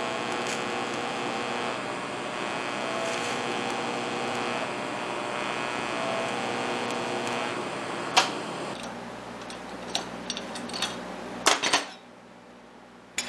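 Electric arc welding on a steel bracket: a steady arc sizzle with a faint hum, which stops about two-thirds of the way through. A few sharp metal clinks and knocks follow as the welded plate is handled at a vise.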